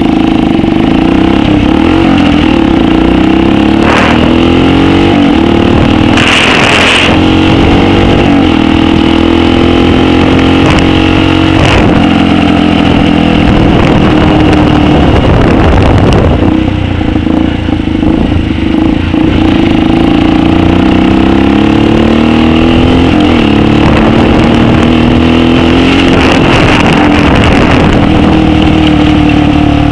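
Megelli 125m motorcycle's single-cylinder engine under way, its pitch rising again and again as it revs up through the gears and dropping back at each shift, with a stretch of falling pitch as it slows. A short rush of noise comes about six seconds in.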